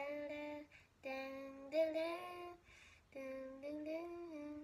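A child singing wordless held notes in three short phrases, each about a second long, with the pitch rising slightly within the later phrases.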